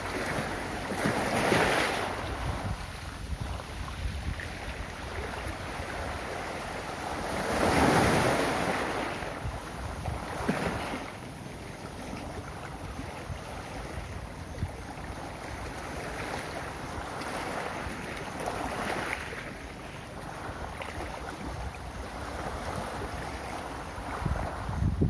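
Ocean waves rolling onto a beach, each breaking wave swelling and fading as a wash of surf, the loudest about eight seconds in.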